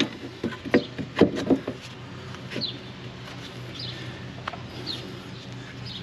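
Light metallic clicks and knocks in the first two seconds as a new rear wheel hub assembly is worked onto the axle splines and pushed into its seat. After that it goes quieter, with a few short bird chirps.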